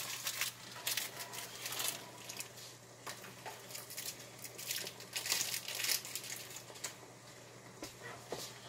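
Plastic cheese-block wrapper crinkling in irregular bursts as it is peeled off, dying down near the end.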